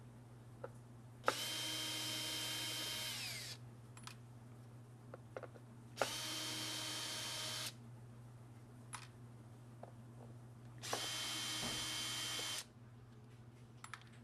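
Cordless drill-driver with a Torx bit backing out the cover screws of a hard drive: three runs of the motor's whine, each about two seconds long, the first winding down in pitch as it stops. Small clicks and taps come between the runs as the bit is set on each screw.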